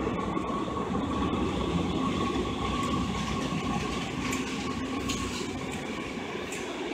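San Francisco Muni Breda light rail train pulling into an underground station platform and slowing. Its wheels rumble steadily on the rails, with light clicks from the track in the middle of the pass.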